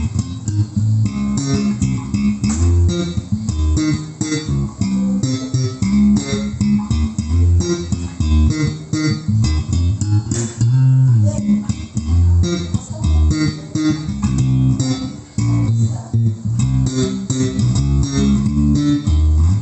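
Thomson JB 101 jazz-style electric bass guitar playing a busy, changing bass line with its natural, unprocessed tone, over a backing song with drums.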